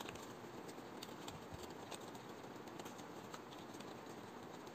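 Paper being folded and creased by hand: faint rustling with scattered small crackles over a steady low hiss.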